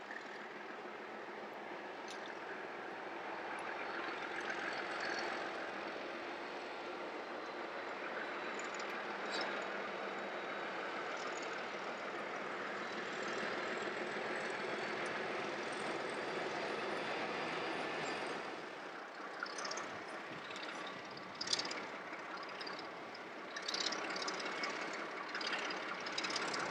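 White Pass & Yukon narrow-gauge diesel locomotive hauling a passenger train, its engine running steadily and growing louder as it approaches. In the last several seconds a few sharp clicks and knocks stand out over the engine.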